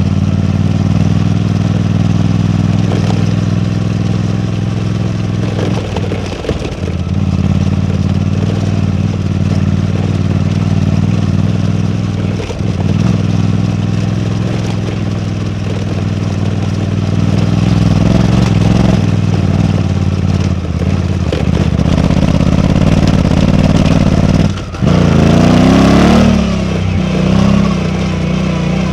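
Suzuki V-Strom 800DE motorcycle's parallel-twin engine running steadily under way, with short breaks in the note about six and twelve seconds in. Near the end the sound drops out for a moment, then the engine revs up in a rising sweep.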